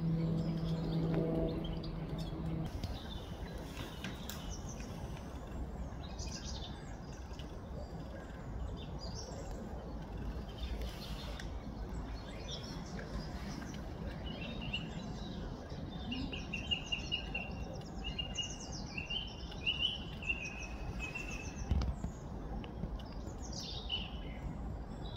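Wild birds singing and calling: scattered short high chirps, with a run of quick repeated notes in the second half, over a steady outdoor background noise. A low steady hum sounds for the first two or three seconds, then stops.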